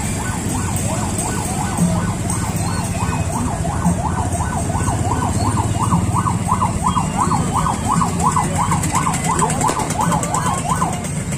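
Electronic vehicle siren in a fast yelp, its pitch sweeping up and down about three times a second, clearest in the second half and cutting off shortly before the end. Vehicle engines run steadily underneath.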